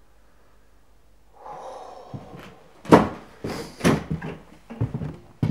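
Hurried footsteps and handling on a hard floor: scuffing, then a string of loud, uneven knocks and thuds about half a second apart, the loudest about three seconds in, as someone moves quickly through a doorway.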